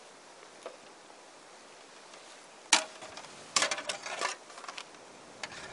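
A metal camp cook pot and lid clink sharply once, with a short ring, about halfway through, then clatter in a quick run of clicks a second later as the pot is handled on the alcohol stove.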